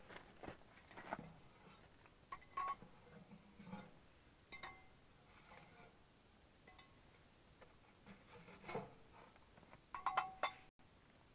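Faint, irregular clicks and short metallic pings from a burning wood stove, the ticking of its hot steel body and the crackle of the fire inside, with the loudest cluster of pings near the end.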